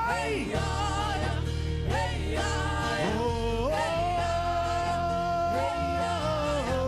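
Gospel worship music: a voice singing wordless, gliding notes and holding one long note through the middle, over a band with a steady bass.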